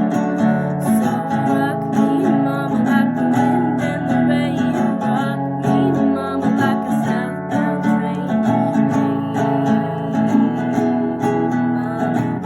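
Guitar strummed in a steady rhythm, chord after chord, with no singing.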